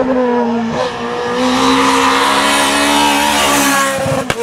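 Renault Clio R3 rally car's two-litre four-cylinder engine running at high revs, its pitch held fairly steady as the car approaches and passes at speed. The rush of engine and tyres grows loudest about three and a half seconds in, then breaks off abruptly near the end.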